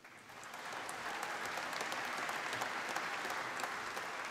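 Audience applauding: many hands clapping together, building over the first second and then holding steady.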